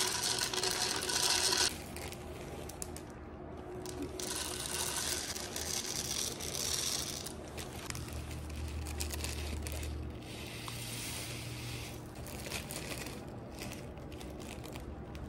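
Mixed dry seeds poured into a glass jar: a hissing rattle of small hard pieces, in three pours, one at the start, one about four seconds in and one about ten seconds in.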